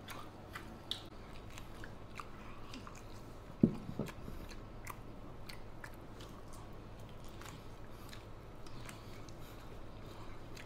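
Faint chewing and gnawing of people eating meat off braised beef leg bones, full of small wet clicks and smacks. One louder thump comes about three and a half seconds in.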